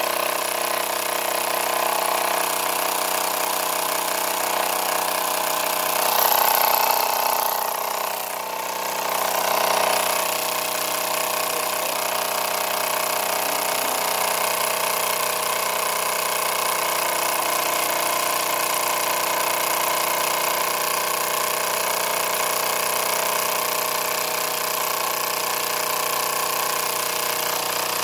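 Wilesco toy steam engine running steadily at speed, its flywheel spinning, giving a continuous hissing, whirring run; it swells briefly louder about six to eight seconds in.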